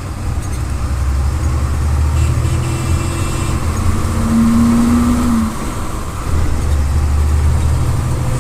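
City bus's MWM 6.12 TCE six-cylinder turbo-diesel engine pulling under load, heard from inside the cabin. It grows louder over the first five seconds, drops briefly about six seconds in, then picks up again.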